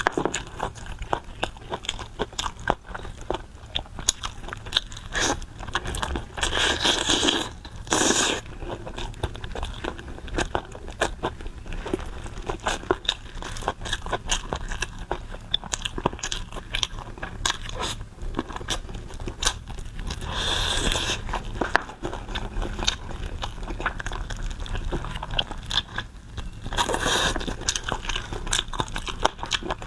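Close-miked eating of pig tongue: steady biting and chewing with many quick wet, crunchy clicks of the mouth, broken three times by a short, louder rush of noise.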